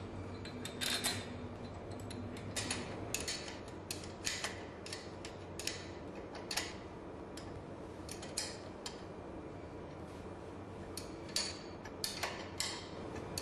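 Irregular metallic clinks and taps of steel parts and hand tools while a pump's rotor assembly is secured to its screw conveyor, about fifteen sharp knocks spread unevenly over a faint steady hum.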